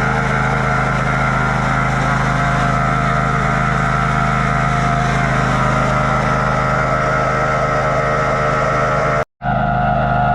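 Riding lawn mower engine running at a steady speed. The sound cuts out completely for a split second about nine seconds in, then resumes.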